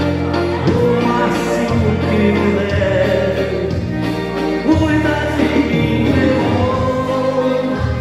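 Dance music with a singing voice over a bass line that moves from note to note, playing loud and steady.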